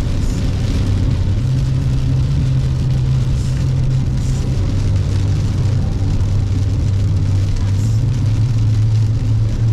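Car running along a rain-soaked highway, heard from inside the cabin: a steady low engine and road drone over the hiss of wet tyres and rain. The hum steps down in pitch about halfway through.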